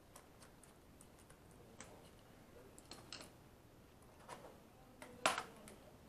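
Faint, scattered small clicks and taps of a screwdriver and fingers working on the bottom case of a Lenovo ThinkPad Edge laptop, with one sharper click about five seconds in.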